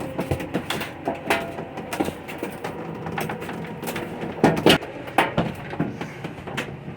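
Wooden boards cracking and creaking under a water heater as a tow truck's winch drags it, a run of irregular sharp cracks with the two loudest close together about four and a half seconds in, over a low steady engine hum.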